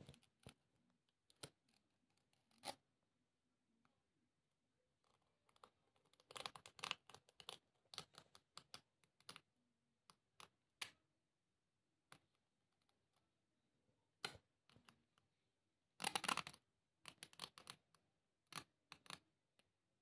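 Faint, irregular scratching and clicking of a hypodermic needle poking and scraping at a striped canvas ballet flat, with denser scratchy bursts about six seconds in and again about sixteen seconds in.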